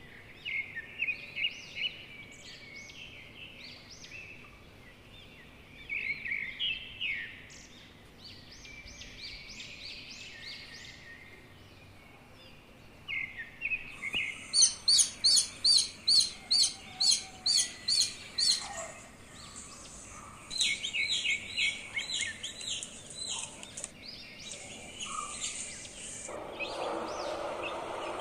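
Newly hatched chicks peeping in scattered bursts, with a run of loud, rapid peeps at about three a second in the middle. A brief noise sits under the peeps near the end.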